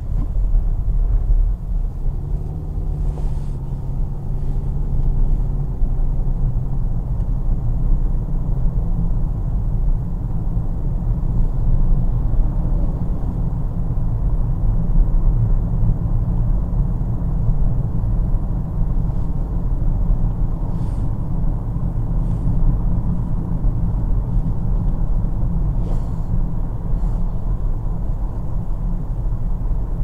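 A car being driven: a steady low rumble of road and engine noise, with the engine note coming up faintly a couple of seconds in.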